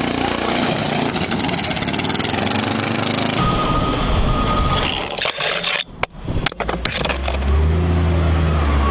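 A motor vehicle's engine running with scraping and clattering noise, changing abruptly a little over three seconds in; a steady low engine hum near the end.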